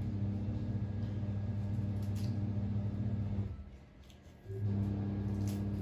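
Washing machine motor humming steadily through its wash cycle, stopping for about a second past the middle and then starting up again.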